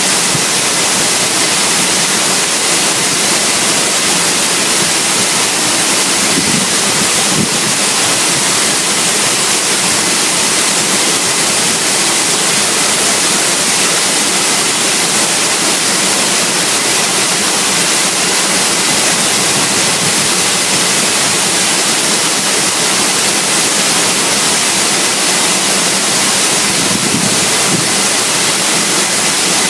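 Waterfall close by: falling water rushing, loud and steady, without a break.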